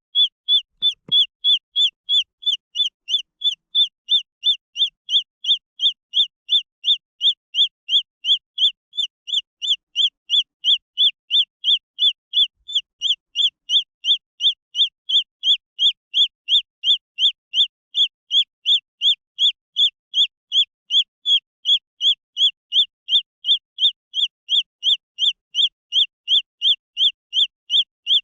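Green junglefowl chick peeping: a steady run of high, evenly spaced peeps, about two a second.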